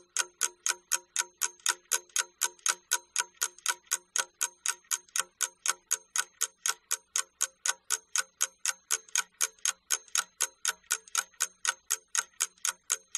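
Clock-ticking sound effect: an even, fast tick at about four ticks a second, marking the time given for reading.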